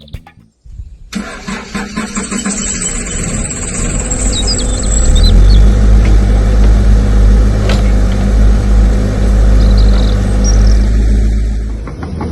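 Diesel-style engine sound of an RC construction model starting up: a rapid ticking crank that builds over a few seconds, then a loud, steady deep rumble that eases off near the end. Birds chirp faintly.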